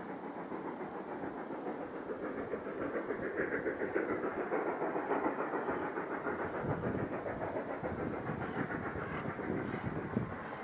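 Narrow-gauge steam locomotives working hard upgrade: a rapid, blurred stream of exhaust chuffs that swells louder a few seconds in, then eases a little.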